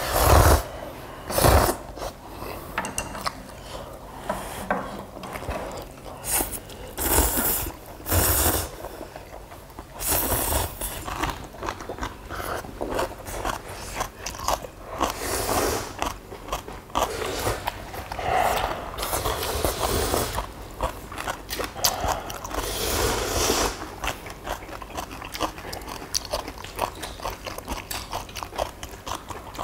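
Close-up eating sounds of ramyeon noodles and kimchi: irregular crunching bites and chewing, with several louder noisy bursts scattered through.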